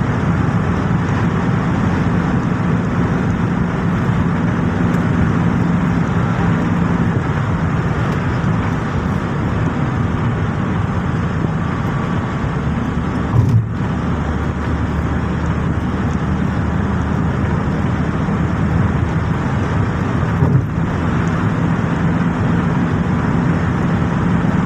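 Inside a car driving at highway speed: steady engine and road rumble. Two brief low thumps come partway through, the second about seven seconds after the first.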